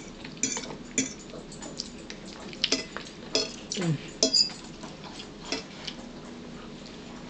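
Eating utensil clinking and scraping against a bowl while eating: irregular sharp clicks, about a dozen strokes scattered through.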